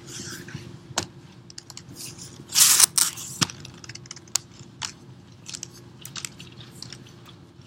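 Knocks, footsteps and sneaker scuffs on a hardwood floor right next to the microphone, with one louder scrape about two and a half seconds in, over a steady low hum.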